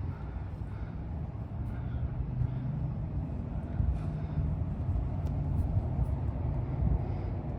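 Low, steady rumble of traffic moving through a parking lot, with a few faint ticks over it.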